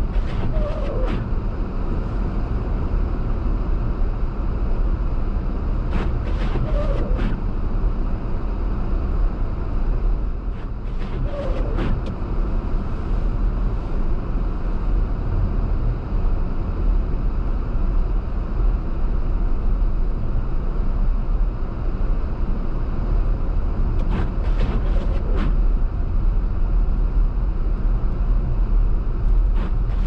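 Car driving on snowy roads, with a steady low road and engine rumble. Four times there is a short cluster of sharp clicks with a brief squeak.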